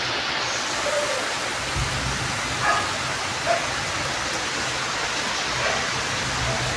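Heavy, torrential rain pouring down steadily, a loud even hiss. A few short animal calls cut through it, four times.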